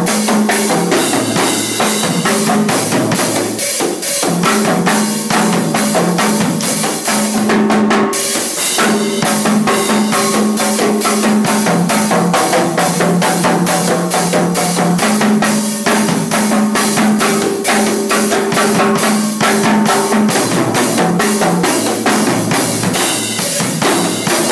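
Chrome timbales played in a fast, dense go-go rhythm, with rapid strikes on the metal shells and heads and the drums ringing between hits.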